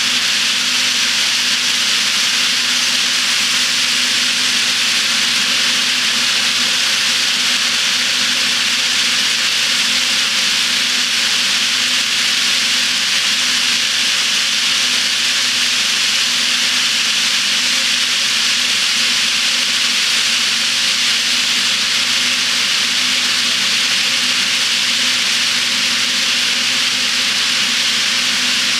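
Steady hissing rolling noise of a long HO scale freight train, many gondolas on metal wheelsets, running around a spiral helix of nickel silver track built on a K'NEX frame, with a faint steady hum underneath.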